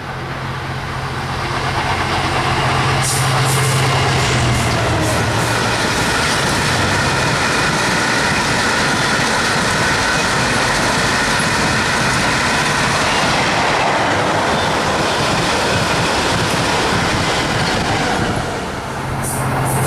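A Freightliner Class 66 diesel locomotive's two-stroke V12 engine drones at the start, then a long rake of ballast wagons rolls past with a steady high ringing over the rumble for much of the passage. Near the end a second Class 66's engine drone comes back in.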